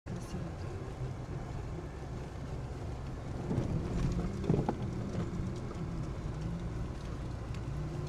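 Car engine running at low speed with a steady low rumble as it drives along a packed-snow forest road. A brief knock comes about four and a half seconds in.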